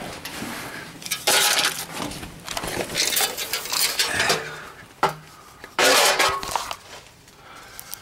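Irregular scuffing and rustling bursts with a few light clinks and knocks, from someone moving about over gravel and handling gear.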